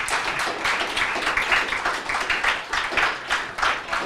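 Audience applauding: many people clapping together at a steady level.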